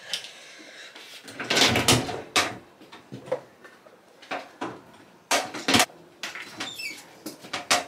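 A series of knocks, bumps and scraping noises of things being handled, in bunches about a second and a half in and again after five seconds.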